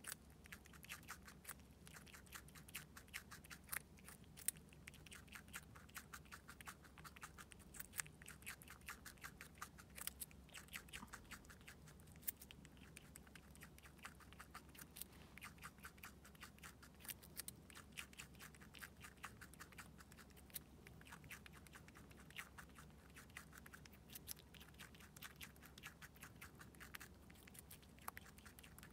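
Richardson's ground squirrel eating a piece of cucumber: a continuous run of quick, crisp little crunches as it nibbles.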